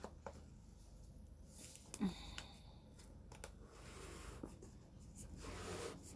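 Faint handling of a smartphone's cardboard retail box as it is opened: a few light taps and clicks, the loudest about two seconds in, then soft rubbing of cardboard near the end.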